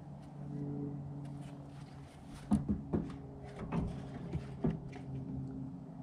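A wooden board frame knocking and bumping several times against the metal frame of a wall opening as it is fitted into it, in a quick cluster about halfway through. A steady low hum runs underneath.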